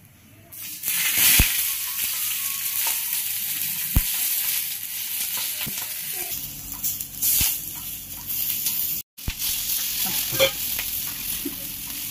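Hot oil sizzling on a cast-iron tawa as a banana-leaf-wrapped parotta parcel is set down on it and fries. The sizzle starts about a second in, with a few sharp knocks, and is cut off for a moment near the end.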